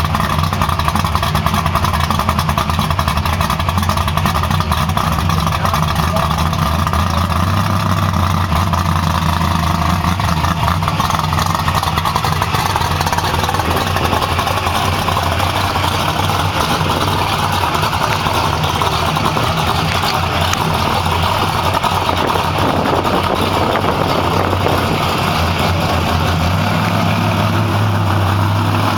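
Fox-body Ford Mustang's 5.0 V8 idling and running at low speed while the car creeps along. The engine note is steady and rises slightly a couple of times.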